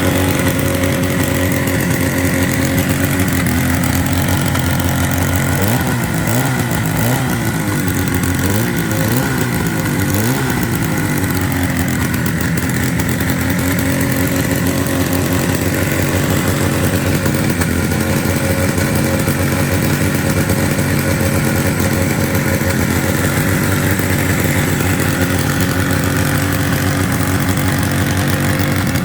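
Mercury-powered 1947 Disston KB7-AY two-man chainsaw engine running steadily, revved up and down a few times between about six and eleven seconds in: the old saw running again after being brought back to life.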